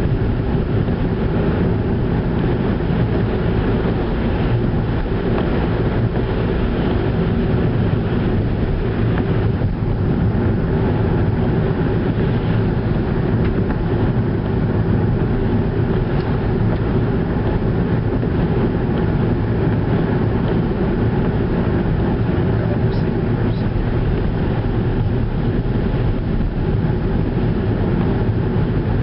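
Skoda Octavia car driving at a steady pace: constant engine and tyre-on-road noise.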